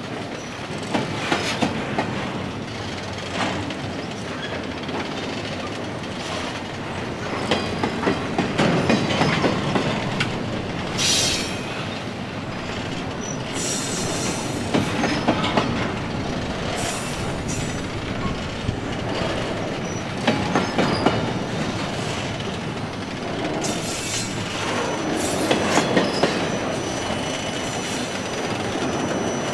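Loaded double-stack container well cars of a freight train rolling past at close range, with a steady rumble and repeated clacking of wheels over the rail. Brief high-pitched wheel squeals come and go.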